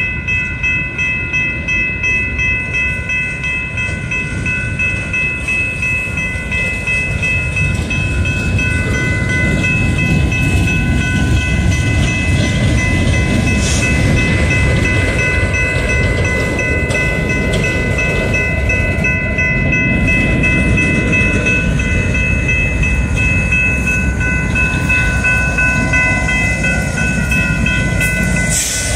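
Freight train of coal gondolas rolling past, with a dense low wheel-and-rail rumble and clatter. A steady high ringing runs over it, typical of a grade-crossing bell.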